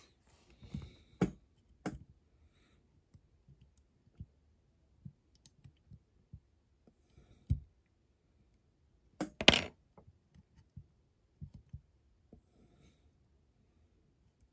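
Light, scattered clicks and taps of tweezers and a matchstick against a diecast metal toy car body as the stick is fitted by hand. A louder cluster of knocks comes about nine and a half seconds in.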